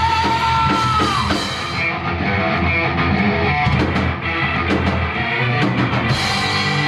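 Live rock band playing the closing bars of a song, with electric guitar, bass, drums and keyboard. A long held high note bends and falls away about a second in, and sustained chords ring toward the end.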